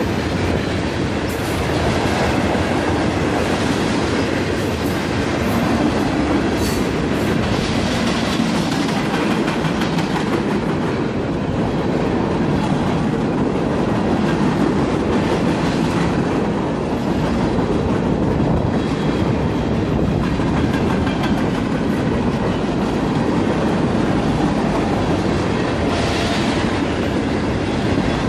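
Freight cars of a Union Pacific train rolling steadily past at close range: a continuous rumble of steel wheels on rail with clickety-clack over the rail joints, and a few brief sharp high sounds from the wheels and couplers.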